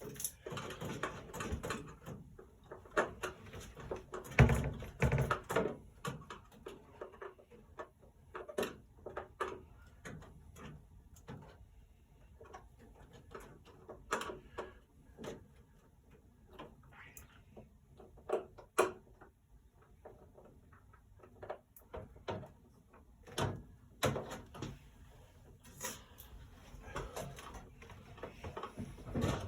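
Scattered knocks, clicks and scrapes of hands and tools working at an air vent, with a few louder knocks.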